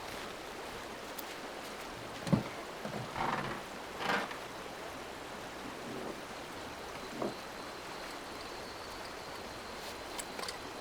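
Steady rushing outdoor noise with a few short knocks, the loudest about two seconds in.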